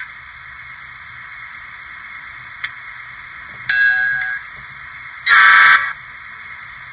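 Digitrax SDXH166D sound decoder playing an EMD 645 diesel prime-mover sound at full volume through its stock speaker, a steady hissy drone that the owner finds really terrible. Over it come a short tone about three and a half seconds in and a louder horn blast about five seconds in, set off from the decoder's function keys.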